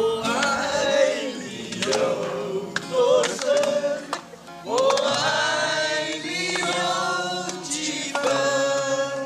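Singing with music: several voices hold long, wavering notes, with a short break a little past the middle.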